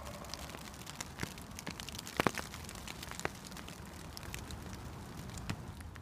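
Light rain falling on a lake and woodland, drops ticking irregularly, with a couple of louder drops a little past two seconds in, over a low steady background rumble.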